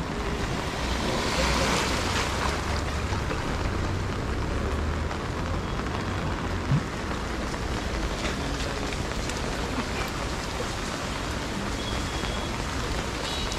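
Steady rain falling, with a low rumble underneath and one brief thump about seven seconds in.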